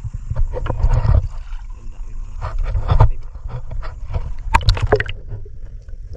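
Water sloshing around an outrigger fishing boat, with wind rumbling on the microphone, broken by sharp knocks and splashes; a quick cluster of the loudest splashes comes about four and a half seconds in.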